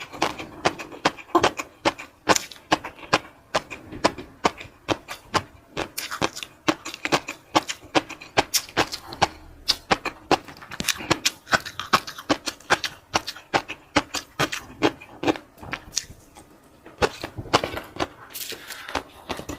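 Close-miked eating: chewing and wet mouth sounds, many sharp irregular clicks and smacks, several a second.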